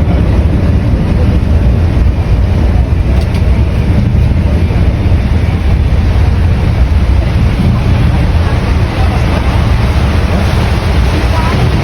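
Wind buffeting the microphone on a moving tour boat: a loud, steady low rumble with water rushing beneath it.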